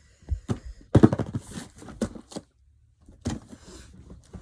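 Handling of TV mount parts and packaging: a string of sharp knocks and clicks, with a short clatter about a second in and single knocks near two and three seconds in.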